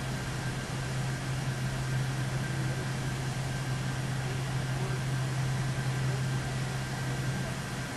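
Steady machine hum with an even fan-like hiss and a faint high steady whine; the low hum cuts off near the end.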